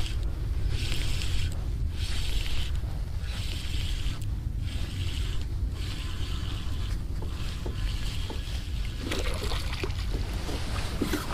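Spinning reel being cranked to retrieve a hooked crappie: a whirring hiss that swells and fades about once a second with each turn of the handle, over a steady low rumble of wind on the microphone. Near the end the fish splashes at the surface, with a few short clicks and slaps.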